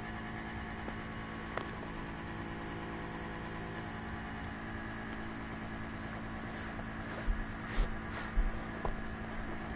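Steady low electrical hum with a few faint clicks. Near the end, a short run of soft rustles and low handling bumps.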